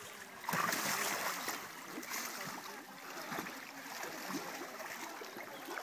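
Water splashing and sloshing as young tigers wade and play in a shallow pool, loudest from about half a second in, then settling to a steady swash.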